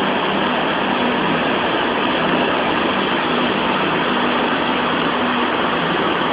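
Floodwater of a swollen, muddy mountain river rushing in a torrent: a loud, steady, dense noise of churning water.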